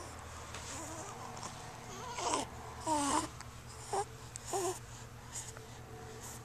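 A young infant cooing: four short vocal sounds that rise and fall in pitch, between about two and five seconds in, over a faint steady low hum.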